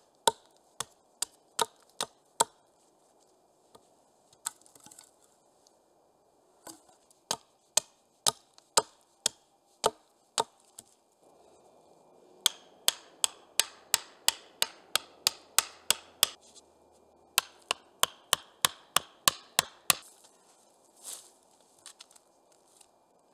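Hatchet chopping into a fallen log: sharp wooden strikes in runs, at times about three a second, with short pauses between the runs.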